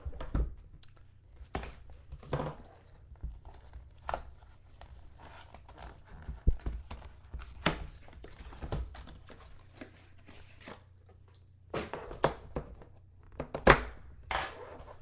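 Plastic wrap being torn and crinkled off a sealed cardboard trading-card box, with irregular knocks and clicks as the box is handled. The sharpest knock comes near the end, as the lid is lifted off.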